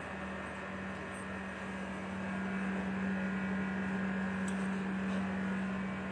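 Steady machine hum at one fixed pitch over a low background noise, getting a little louder about two seconds in.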